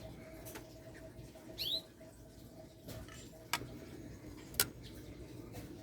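A white-rumped shama gives one short two-note chirp, falling in pitch, about a second and a half in. Two sharp clicks follow later, over a faint steady hum.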